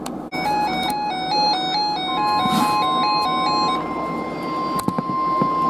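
An electronic alert receiver beeps in a quick stepping two-note pattern. About two seconds in, the steady single-pitch NOAA Weather Radio warning alarm tone starts and holds, signalling that a new weather warning follows.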